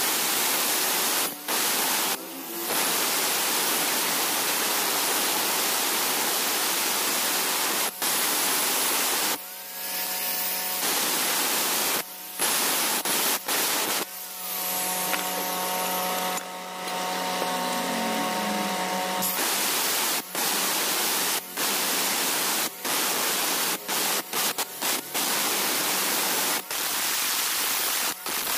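Handheld electric angle grinder cutting and grinding hard river stone: a loud, harsh hiss of the disc on the rock, broken by many brief dips. From about fourteen to nineteen seconds the hiss eases and the motor's whine shows through.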